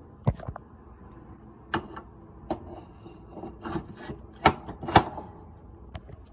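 New 13x5x6 wheel's hub being slid onto a greased mower axle: scraping and rubbing with scattered knocks, the two loudest about four and a half and five seconds in.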